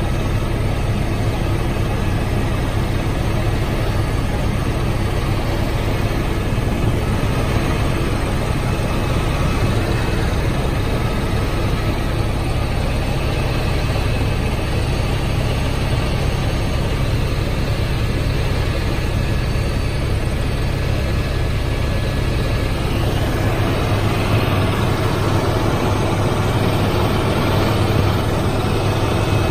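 Helicopter engine and rotors heard from inside the cabin in flight: a steady, loud, unbroken noise, heaviest in the low end.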